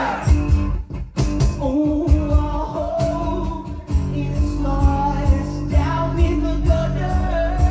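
Band playing live on acoustic instruments: a rock song with a steady drum beat under guitars and a sung melody.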